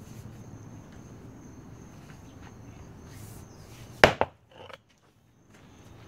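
An 8-pound sledgehammer dropped onto a small concrete slab reinforced with Helix micro rebar. There are two sharp knocks a fraction of a second apart about four seconds in, and the blow cracks the slab.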